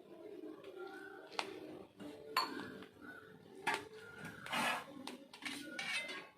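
Knife cutting through a soft cake on a plate, clinking and scraping against the plate a few times about a second apart.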